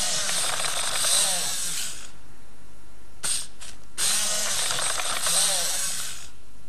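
The geared servo motors of an i-Cybie robot dog whirring and grinding as it moves. The sound comes in two bursts of about two seconds each, one at the start and one about four seconds in, with a short whir just before the second.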